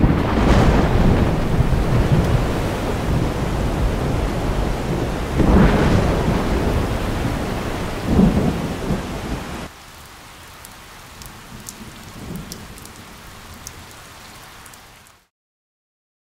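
Heavy rain with rumbles of thunder that swell about half a second in, around six seconds and around eight seconds. Near ten seconds it drops to a lighter, steady rain with a few sharp drip ticks, then cuts off suddenly near the end.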